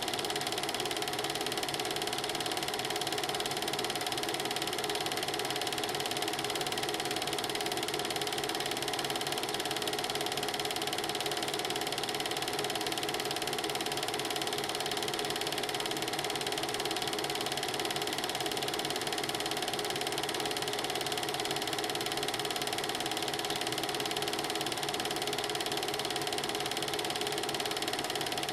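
Film projector running: a steady, rapid mechanical clatter of the film-advance mechanism with a constant hum.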